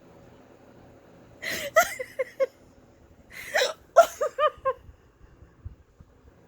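A person hiccups twice, about a second and a half in and again a couple of seconds later, each sharp hiccup followed by a few short giggles.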